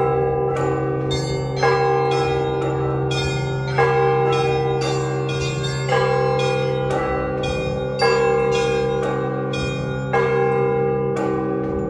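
Orthodox church bells ringing for the end of a service: a heavy bell struck about every two seconds, five times, with smaller bells chiming quickly in between over the big bell's low hum.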